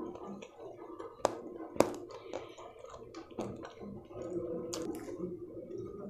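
Bare fingers mixing and scooping spiced rice on a steel plate: soft squishing, with a few sharp clicks of fingers against the metal, the two loudest close together about a second and a half in.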